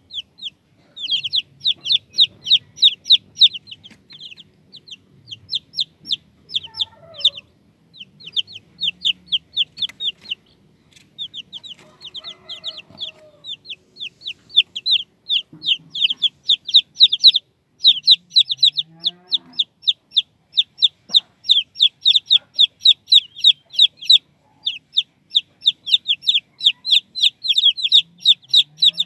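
Chicks peeping: a dense run of rapid, high-pitched peeps, each sliding down in pitch, with a few short lulls. A few lower calls sound now and then underneath.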